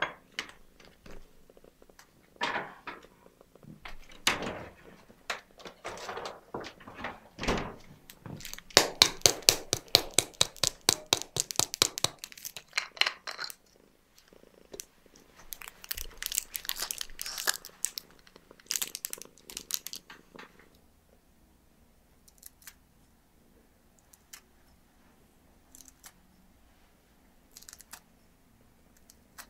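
A small ceramic bowl set down on a stone countertop with a knock, followed by food-preparation noises: scattered knocks, then two bursts of fast, even clicking at about six a second. After that it goes almost quiet apart from a few faint ticks.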